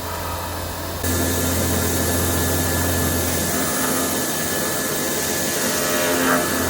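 Hitachi Seiki VM50 three-axis CNC vertical mill running a finishing pass, an 8 mm ball-nose end mill spinning at about 3800 rpm in a steel mold. The steady machining noise steps up in level about a second in.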